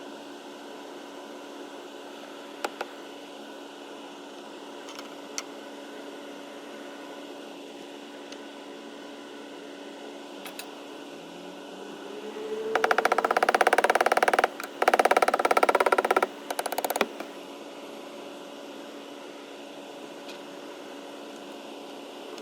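An evaporative (swamp) cooler running with a steady motor hum and whir. About halfway through, a much louder rattling buzz comes in for roughly four seconds, breaking off briefly a couple of times before the steady hum returns.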